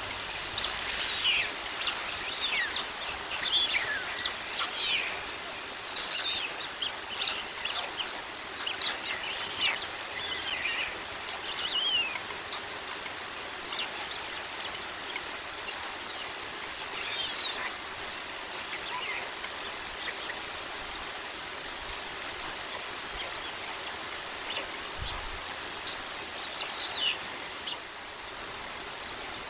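Steady hiss of heavy rain, with scattered short, high bird chirps, busiest in the first dozen seconds and again briefly near the end.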